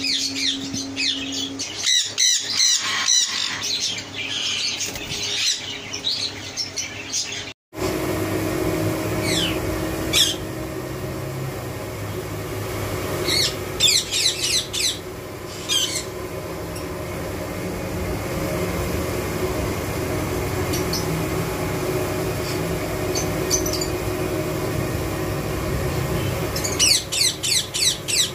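Indian ringneck parakeets squawking and chattering with rapid, repeated sharp calls. After a brief break, a ringneck gives short bursts of sharp calls a few times over a steady hum.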